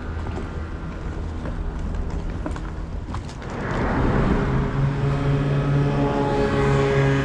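Motor vehicle engine running steadily, then growing louder about halfway through as it draws close.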